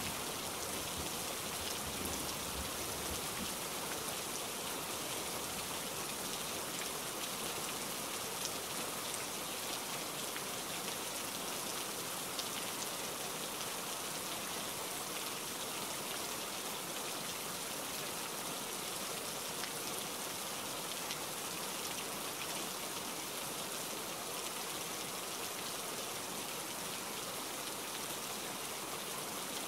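Steady heavy rain, an even hiss, with a low thunder rumble dying away in the first few seconds.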